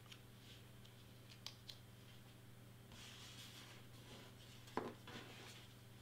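Faint handling sounds of paper crafting: a few light clicks, a short rustle about three seconds in, and a soft knock a little before five seconds with a smaller one just after, over a steady low hum.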